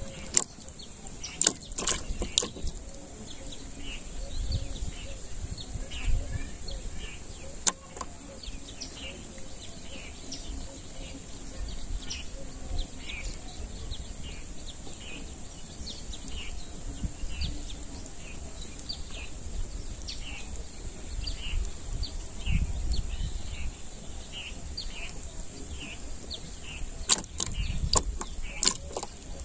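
Outdoor ambience: a bird giving short chirps over and over, about once a second, over a low rumble of wind on the microphone, with a few sharp clicks near the start and near the end.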